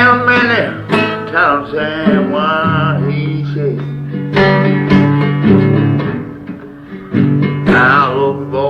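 Blues music played on guitar, with held bass notes under a wavering melody line.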